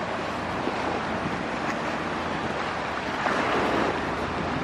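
Steady rushing roar of a distant jet airliner climbing out after takeoff, mixed with wind on the microphone.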